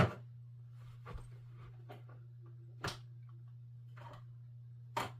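A few sharp knocks and clicks as a CB microphone is picked up and handled, about five in all, the loudest at the start and near the end, over a steady low hum.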